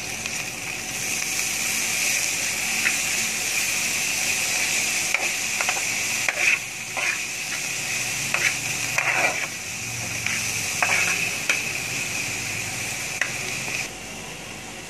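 Chopped onion, green chillies and fresh coriander sizzling in a little oil in a metal frying pan, stirred with a slotted metal spoon that scrapes and clicks against the pan. The sizzle drops off sharply near the end.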